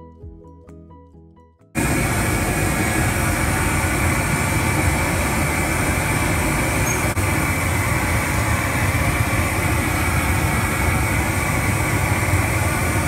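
Soft music fades out, then about two seconds in a hand-held LPG gas torch starts up abruptly with a loud, steady rushing hiss as its flame singes a plucked chicken.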